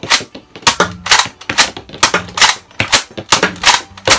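Lanard Shell Shock X-6 toy blaster being repeatedly cocked and fired: a quick series of sharp plastic clacks, about two to three a second, as the slide is worked, the dart shells are fired and the spent shells are ejected.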